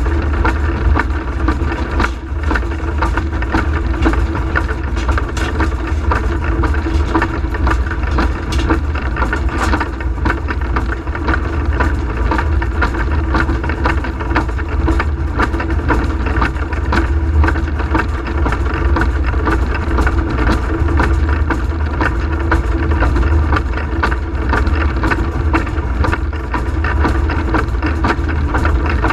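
Cab noise of Peckett & Sons industrial steam locomotive Ashington No.5 working under steam: a steady, loud rumble with scattered clicks and knocks throughout.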